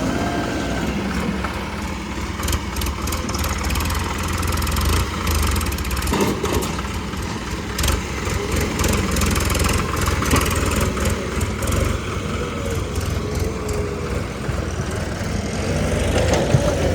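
Engine running steadily, a constant low hum with no change in speed.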